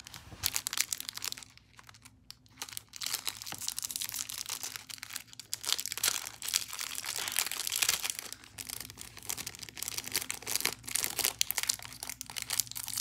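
Small clear plastic bags crinkling and rustling as they are handled and opened, with a brief lull about two seconds in.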